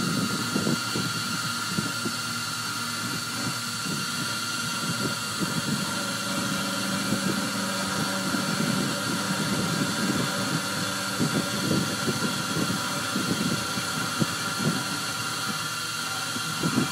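Sherline benchtop CNC milling machine running: a steady whine made of several held tones over an uneven low rumble.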